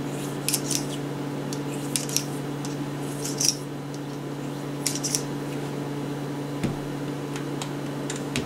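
Short scrapes and rustles of a solvent-soaked bore mop on a cleaning rod being worked through the chambers of a revolver cylinder, with a light knock about two-thirds through, over a steady low electrical hum.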